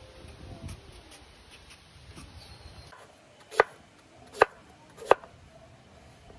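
Three sharp chops of a large knife cutting through peeled breadfruit onto a wooden cutting board, a little under a second apart, a bit past halfway through.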